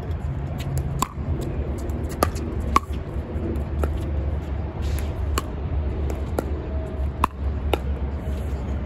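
Pickleball paddles hitting a plastic pickleball during a rally: a string of sharp pops at an uneven pace, some half a second apart, some nearly two seconds apart, a few with a short ring. A steady low rumble of wind on the microphone runs underneath.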